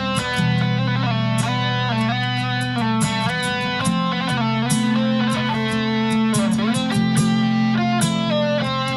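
Ambient instrumental music: a nylon-string guitar plucks a melody over steady, long-held low notes.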